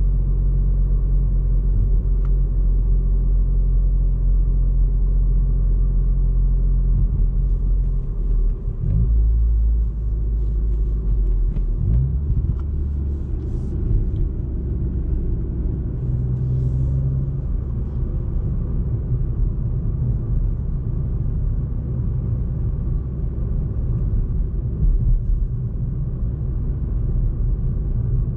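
Ford Fiesta ST Mk8's 1.5-litre turbocharged three-cylinder engine and road noise while cruising at low load, a steady low drone whose note changes about nine seconds in and again about twelve seconds in.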